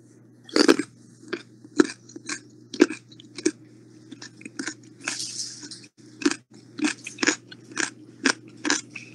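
A rapid series of sharp crunching clicks close to the microphone, about two a second, with a short rustling patch midway, over a steady low electrical hum.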